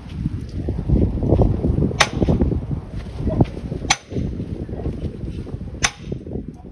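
Sharp blows struck one every two seconds or so, three in all, over a steady low rumbling noise.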